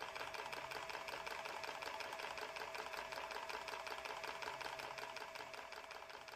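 Small mechanism of a wooden blacksmith automaton running with a rapid, even ticking clatter and a steady hum, fading out near the end.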